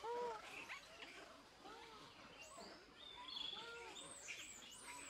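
Faint macaque calls: one short arched coo right at the start, then scattered softer coos and squeaks. High bird chirps and a brief trill run in the background.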